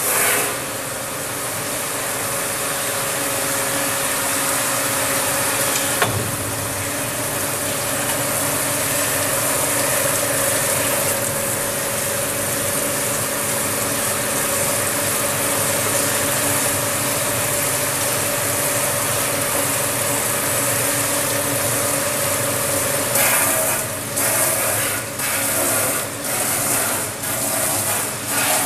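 Rotary bottle rinsing machine running: a steady mechanical whir and hiss with a constant hum, and one sharp click about six seconds in. Near the end the noise turns uneven and pulsing.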